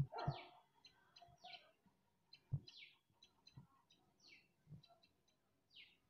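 Common tailorbird calling faintly: short high chirps mixed with a falling note that repeats about every second and a half. A few low thumps come through as well, the loudest at the very start and about two and a half seconds in.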